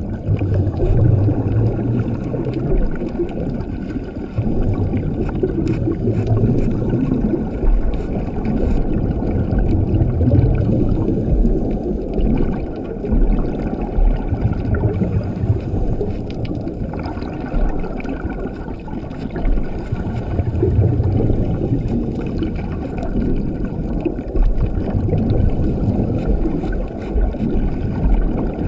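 Scuba diver breathing through a regulator underwater: exhaled bubbles rise in a low gurgling rumble that swells and fades about every five seconds, over a steady wash with scattered faint clicks.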